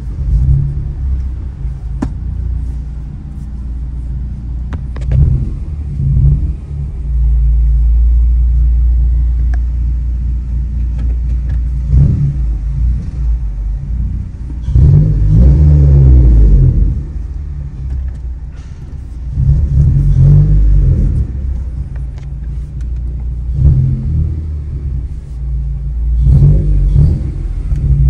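9th-generation Honda Civic Si's 2.4-litre four-cylinder with an aftermarket downpipe and exhaust, heard from inside the cabin while driving slowly. A low rumble swells several times under throttle, loudest about halfway through.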